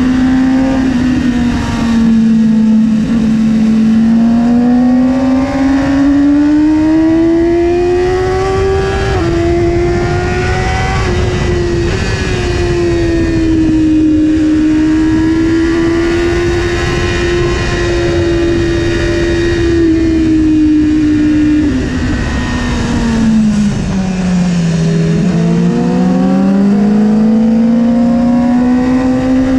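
BMW S1000RR's inline-four engine pulling hard at high revs. Its pitch climbs and falls with the throttle, with a few sudden small steps where the revs change, and it drops low about 25 seconds in before climbing again. A steady rush of wind and road noise lies underneath.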